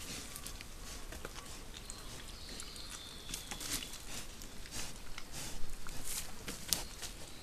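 Wild boar piglets rooting and scuffling in a muddy wallow: scattered rustles, clicks and patters in wet soil and leaf litter, busier and louder in the last couple of seconds. A faint thin high whistle sounds briefly near the middle.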